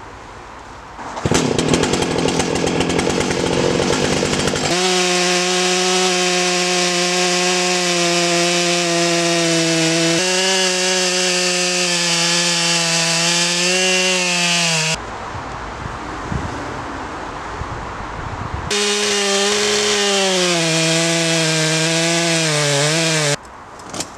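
Stihl MS661 chainsaw running at full throttle while cutting through a large beech log, its engine note steady under load and sagging in pitch as the chain bites. There is a quieter stretch in the middle, and the engine pitch wavers and drops near the end before the sound cuts off abruptly.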